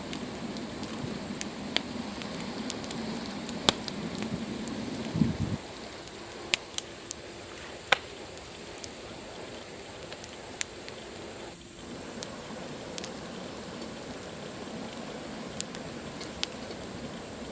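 Wood campfire crackling, with irregular sharp snaps and pops over a steady hiss. A lower rumble under it stops about five seconds in.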